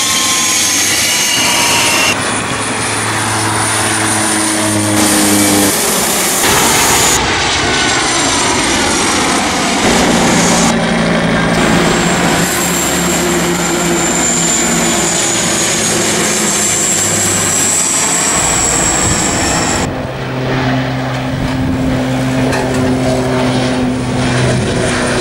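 Turboprop airliners (an ATR 72 and De Havilland Canada Dash 8-400s) flying low overhead: the steady drone and hum of their propellers and engines, with a high whine over it. The sound changes abruptly every few seconds where separate shots are cut together.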